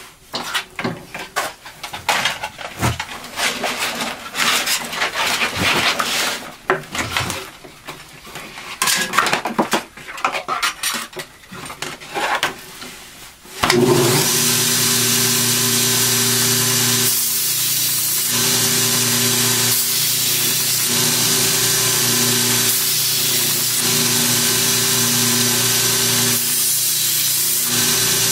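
Irregular clicks and knocks of a belt being changed on a belt grinder. About 14 s in, the grinder starts up suddenly and runs steadily with a hum and hiss as the kukri's edge is ground on the new 100-grit belt.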